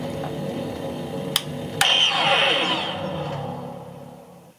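Proton pack sound board hum running, then a click about a second and a half in followed by a power-down sound effect of several falling tones, with the hum fading away to near silence by the end.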